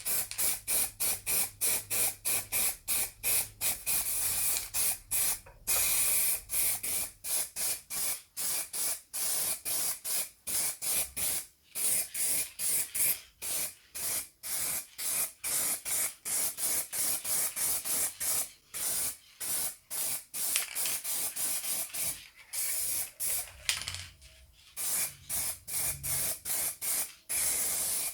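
Hissing spray of air, chopped into short rapid bursts about three a second, with a brief pause near the end.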